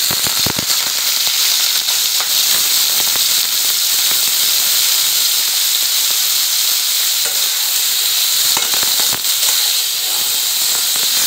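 Freshly washed dried fish (shutki) frying in hot oil in an aluminium karahi: a loud sizzle that starts suddenly as the wet fish goes in, then keeps up as a steady hiss with scattered crackles. A metal spatula stirs the pieces near the end.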